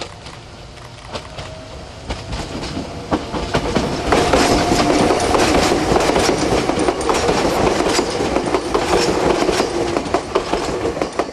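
Meitetsu 7000 series Panorama Car electric train passing close by, its wheels clattering over the rail joints. The sound builds over the first few seconds and runs loud and steady from about four seconds in.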